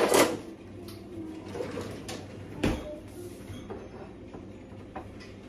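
Kitchen knocks and clatter of utensils and cabinetry, loudest right at the start, then one sharp knock about two and a half seconds in and a faint one near the end, over a steady low hum.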